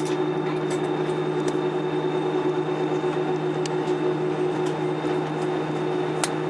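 Cabin noise of an Airbus A320-200 taxiing: a steady hum of the engines and air conditioning holding several steady tones, with a few faint light clicks, the sharpest near the end.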